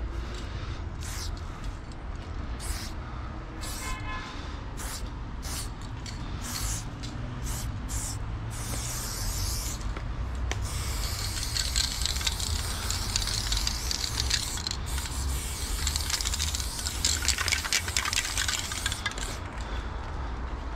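Loop Colors spray paint cans hissing against a stone wall: a run of short spray bursts over the first half, then one long continuous spray lasting about eight seconds.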